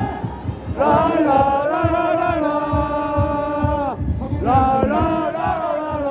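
A large football supporters' crowd chanting a song in unison, holding long sung notes, with a short break about four seconds in, over a steady low beat.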